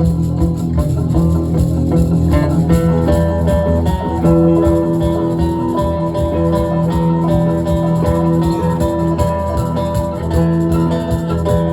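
Live band playing an instrumental passage with electric guitar, bass and drums; a lead guitar line comes in about two seconds in.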